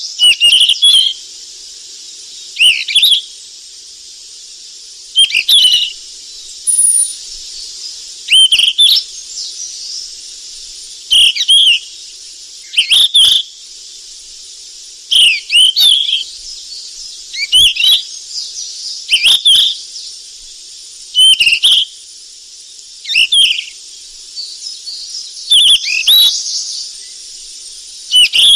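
A sikatan emas (flycatcher) singing one short phrase of quick rising and falling chirps over and over, about once every two seconds, over a steady high hiss.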